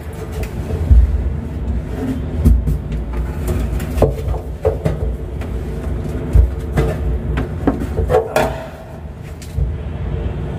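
Homemade pipe faucet wrench being turned against a faucet mounting nut under a stainless steel sink to tighten it: scattered clicks and knocks of the tool on the fitting, over a steady low rumble.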